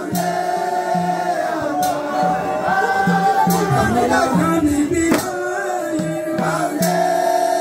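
Men's group chanting a mawlid devotional song, held sung lines over a low pulse, with a sharp percussive strike about every second and a half to two seconds.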